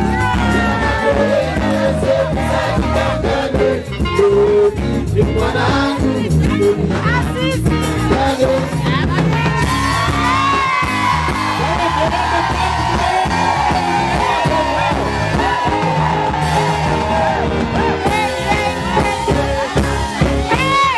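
Loud dance music with a steady beat and a sung vocal line, with crowd voices and a few brief high shouts over it.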